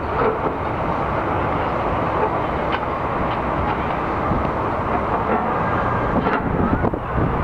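Wind buffeting the camera microphone: a steady rushing noise with stronger gusts near the end.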